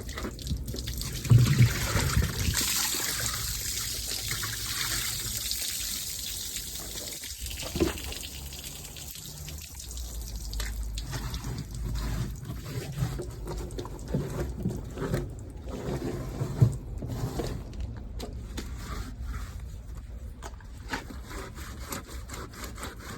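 Bucket of water poured onto a steel cab floor, splashing loudly at first, then trickling and dripping as it drains, with scattered light knocks. The water is rinsing rust-converter chemicals off the treated floor.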